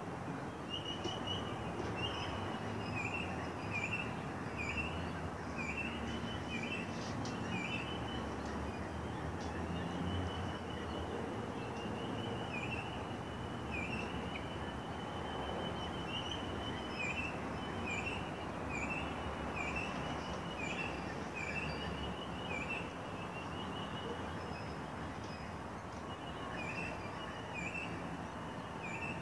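Outdoor ambience: birds calling in runs of short, repeated, downward-hooked chirps, with fainter high chirps, over a steady low background rumble.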